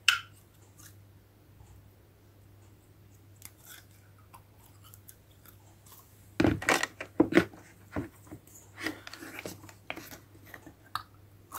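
Plastic toy cookware and a plastic cup being handled: a single click at the start, then from about halfway a run of small knocks, clicks and rustles.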